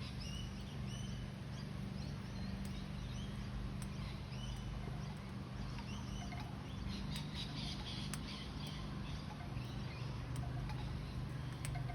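Small parrots chirping in many short, quick calls, thickest in the first few seconds, with scattered sharp clicks later on, over a steady low hum.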